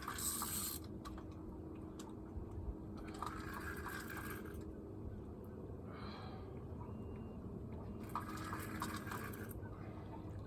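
Water lapping and splashing against a boat hull in waves, in intermittent washes every few seconds over a faint steady hum.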